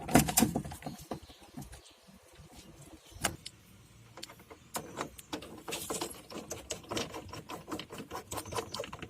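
Car door trim panel being handled and fitted back onto the door. A run of irregular clicks and light knocks of plastic and metal, with a sharper knock about three seconds in.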